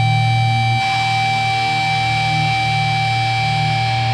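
Live band's electric guitar and bass ringing out through stage amplifiers in a sustained drone with steady high tones held over it, a brighter noisy layer joining about a second in, just before the next song starts.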